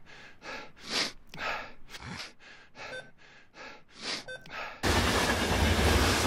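Soft rhythmic whooshes about twice a second, with two short electronic beeps, then, about five seconds in, the loud steady rumble and hiss of a light-rail Metro train running, heard from inside the carriage.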